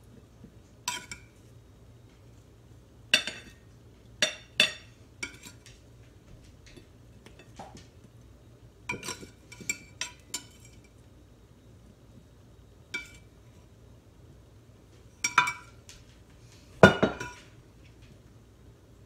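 Metal utensil clinking against a glass baking dish and a plate in scattered sharp knocks, some with a brief glassy ring, as set nougat bars are cut and lifted out. The loudest, longest knock comes near the end.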